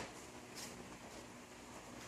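Faint room tone: a steady low hiss, with a faint tick about half a second in.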